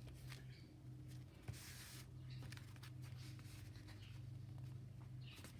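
Faint rustling and rubbing of paper as it is handled and slid into place, with a few light ticks, over a steady low hum.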